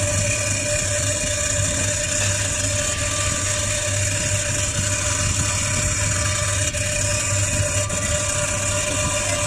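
Hermetic refrigeration compressor of a commercial freezer running, a steady low hum with a fainter steady whine above it.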